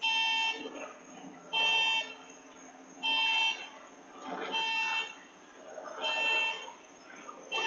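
An electronic alarm tone beeping in a steady pattern, each beep about half a second long, about one every second and a half.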